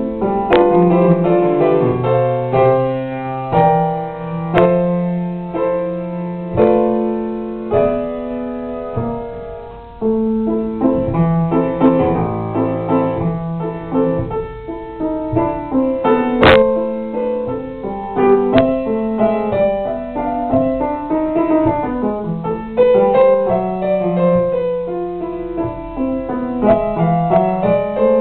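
Grand piano played solo, a piece of melody over chords with clearly struck notes. The playing eases off briefly about ten seconds in before going on, and a single sharp click sounds about sixteen seconds in.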